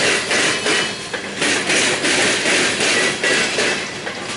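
Freight train of coal hopper cars rolling past at close range, its steel wheels clacking over the track in a quick repeating rhythm, with the steady rumble and rattle of the passing cars underneath.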